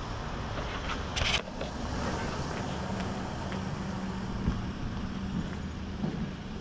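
A steady low engine hum, like a vehicle idling nearby, with a short noisy rustle about a second in and a few faint footfalls on asphalt.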